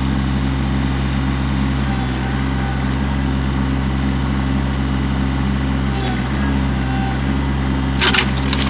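Excavator's diesel engine running steadily, with wood cracking and splintering near the end.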